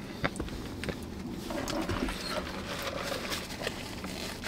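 Faint eating sounds inside a car cabin: chewing, paper napkin rustling and small clicks over a steady low hum.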